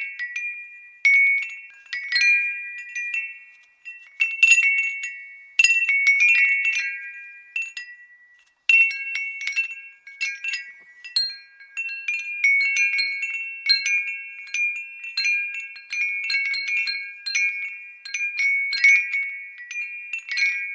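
A glass wind bell tinkling in an irregular stream of light strikes, each ringing with high bright tones that fade before the next, with a brief lull about eight seconds in.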